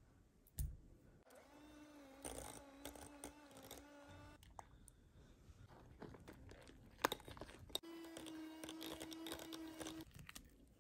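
Electric hand mixer beating cream cheese in a glass bowl, running in two bursts of about three seconds each, the second at a slightly higher pitch. Scrapes and a few sharp clicks fall between the bursts.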